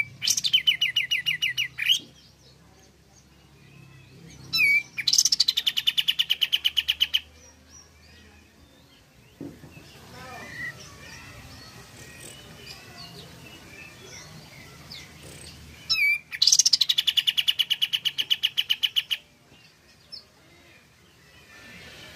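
Olive-winged bulbul (kapas tembak) singing three loud bouts: each is one or two short lead-in notes followed by a fast, even rattle of repeated notes lasting two to three seconds. The bouts start at the beginning, about four seconds in and about sixteen seconds in. Faint chirps come between them.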